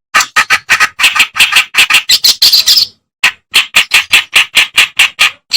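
Kerakbasi (Acrocephalus reed warbler) song: harsh chattering notes repeated fast, about five a second, with a brief break about three seconds in before the run picks up again.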